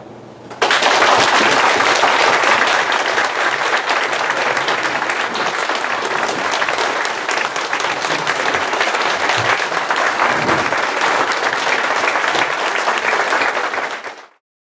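Audience applauding: loud, dense clapping from many people that starts abruptly about half a second in and dies away quickly near the end.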